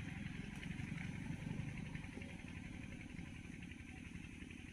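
A small engine running steadily in the background, a low even rumble of fast pulses that eases slightly toward the end.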